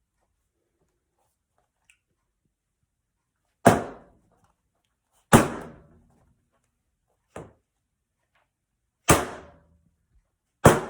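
Heavy blows striking the TV set: five sharp, loud thuds about 1.5 to 2 seconds apart, the third one weaker, each ringing out briefly.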